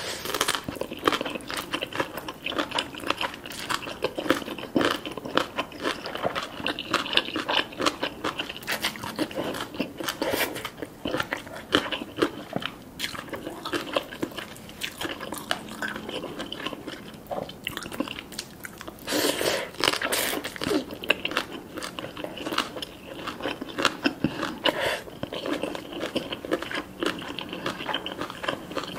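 Chewing a mouthful of spicy green papaya salad, with many crisp crunches of the shredded papaya. A louder stretch of crunching comes about twenty seconds in.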